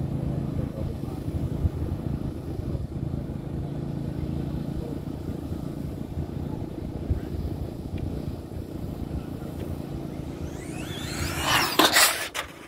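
Steady low background rumble, then a radio-controlled drag car's motor sets up a rising high whine as the car launches and runs past close by, loudest near the end and cutting off abruptly.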